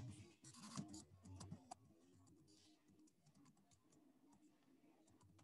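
Near silence: room tone with faint scattered clicks, most of them in the first two seconds.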